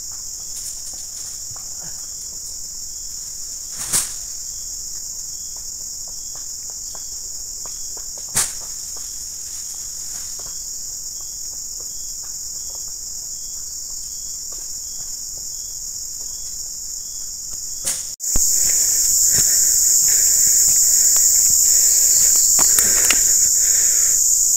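Steady high-pitched chorus of insects chirring in an oil palm plantation, with a faint chirp repeating about every half second and two sharp clicks. About three quarters of the way through the chorus jumps louder, with some rustling.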